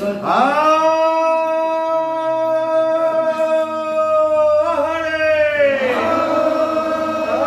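Conch shell blown in long, steady blasts. The first slides up into its note, holds about five seconds and slides down; a second blast starts just after.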